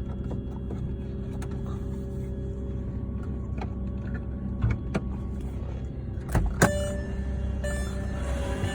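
2005 Volkswagen Touareg 3.2 V6 at start-up, giving off a steady whining tone over a low rumble, with a few sharp clicks and a brief louder burst about six and a half seconds in. It is an unexplained start-up noise that began after an oil change and comes back every morning on starting.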